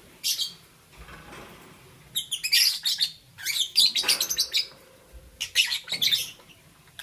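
Pet lovebirds chirping: a short chirp near the start, then two dense bursts of rapid, high, shrill chirps, the first and longest lasting about two seconds, the second near the end.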